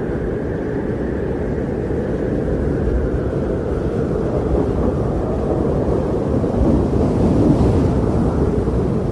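Strong blizzard wind blowing in a steady deep rush, swelling a little near the end.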